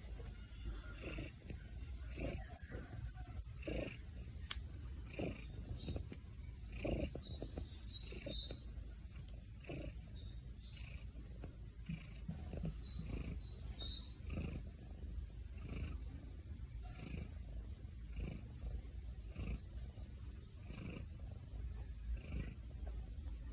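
Domestic cat snoring in its sleep: a soft rasping breath that repeats evenly, about once every second and a half.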